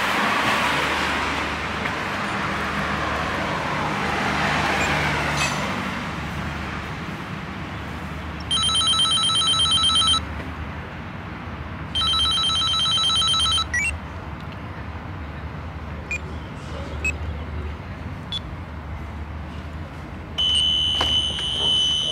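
Apartment-door intercom calling: two electronic ring tones of about a second and a half each, a couple of seconds apart, then a steady electric door-release buzzer starts near the end as the entrance door is unlocked. A car passes in the first few seconds.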